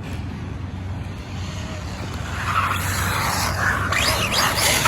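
RLAARLO ROG1 RC car running on a 3S battery, its electric motor whining and its tyres hissing on pavement. It gets louder about two seconds in, and near the end the motor gives several quick rising whines as it is revved.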